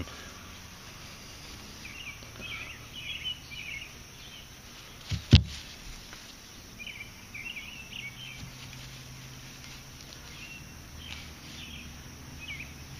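Birds chirping in short phrases over background ambience, with one sharp knock about five seconds in.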